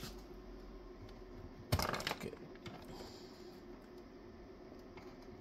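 A sharp click about two seconds in, then a few lighter clicks and rattles, as the Astron power supply with its newly fitted circuit breaker is plugged in and switched on, with no bang.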